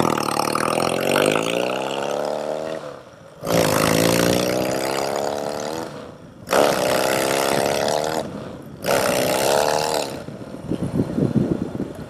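Yamaha XS650 air-cooled parallel-twin motorcycle engine accelerating through the gears: four pulls that each rise in pitch, with short drops as the rider shifts, then easing off in the last couple of seconds. The rider says the foot clutch is slipping a little on the road and needs adjusting.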